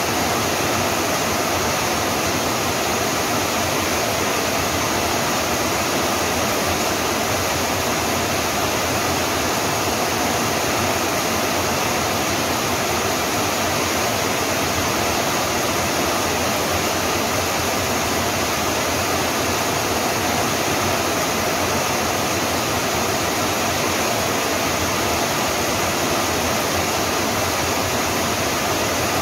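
Steady rain falling, an even, unbroken hiss of water.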